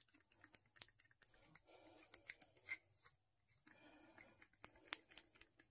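Faint, irregular ticks and soft scrapes of a thin stir stick against the wall of a small plastic cup as a white paint mixture is stirred.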